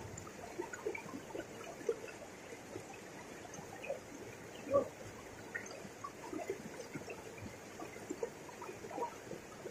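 River water flowing: a steady faint rush with many small, irregular plinks and splashes scattered through it.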